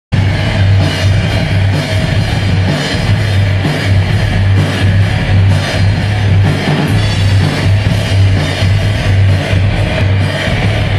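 Live rock band playing loudly: electric guitar, electric bass guitar and drum kit, with a heavy, steady bass.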